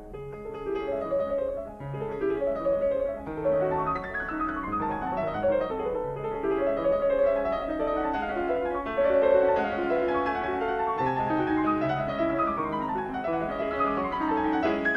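Background piano music: a flowing melody over held chords, with quick runs of falling notes near the end.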